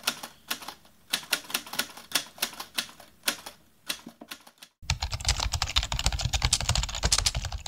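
Keyboard typing: irregular sharp key clicks, a few a second, then from about five seconds in a faster, denser clatter of keys with a low rumble under it.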